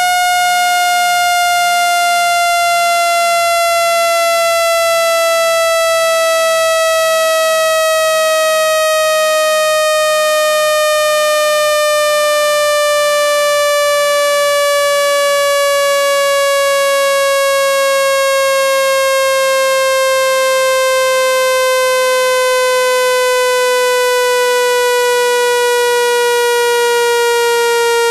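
Electronic water-ejection tone for phone speakers: a loud, buzzy synthetic tone whose pitch slides slowly and steadily downward. It is meant to vibrate water out of a phone's speaker.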